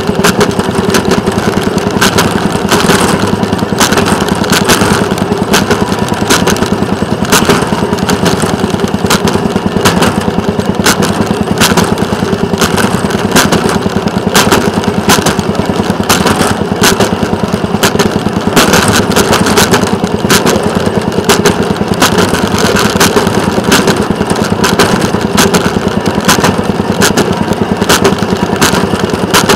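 Small engine of a railroad motorcar running steadily as it travels along the track, with frequent sharp clicks of the wheels passing over rail joints.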